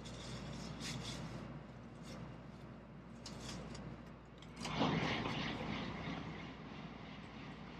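A Shinkansen bullet train passing close by at speed: a sudden rush of air and rail noise breaks in about four and a half seconds in. It is loudest at first, then settles into a steady rumble as the carriages go by.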